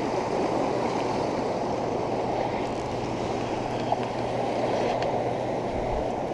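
Steady rush of water pouring over a river spillway.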